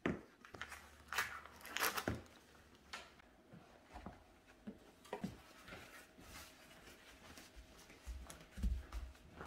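Quiet handling of a plastic meat tray and paper towels on a stone countertop, with scattered soft crinkles and taps. Ground beef is tipped out of the tray onto the towel, and the towel is folded and pressed over it to blot off the blood. A dull thump comes near the end.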